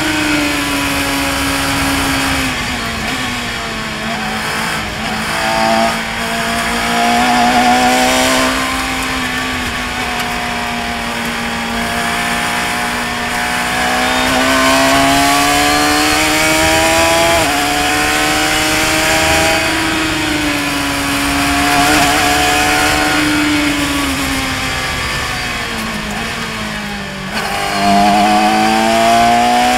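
Radical SR3 RSX race car's motorcycle-derived four-cylinder engine at high revs on track, its note rising and falling with braking, gear changes and acceleration. There is a sudden pitch jump about two thirds of the way in, and near the end the note dips and then climbs quickly. Wind rushes over the open cockpit throughout.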